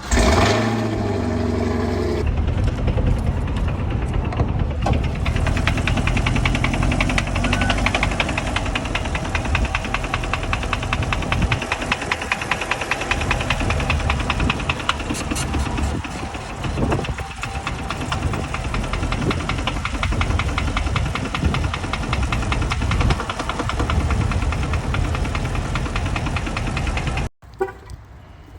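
A 2021 Camaro SS's 6.2-litre V8 starting up and then running with a fast, steady, repeating knock, the noise the owner feared was rod knock. It cuts off suddenly near the end.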